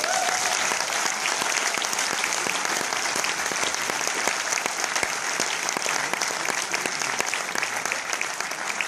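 A cinema audience applauding: dense, steady clapping from many hands throughout.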